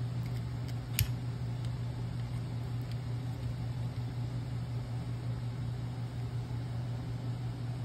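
Steady low mechanical hum, like a fan running, with one sharp light click about a second in and a few faint ticks as a screwdriver is worked against a steel throttle-linkage rod end.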